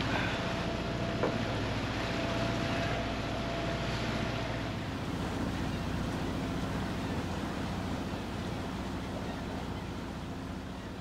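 A boat's engine runs with a low steady hum under wind and water noise. About four and a half seconds in the hum drops away, leaving wind and water noise.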